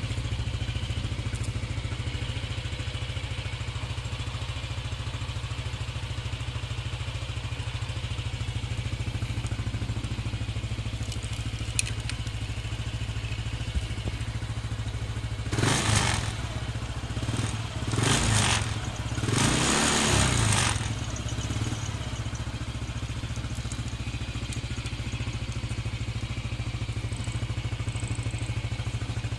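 Yamaha NMAX scooter's single-cylinder engine idling steadily. About halfway through, a few louder rushing, scraping noises come and go over several seconds.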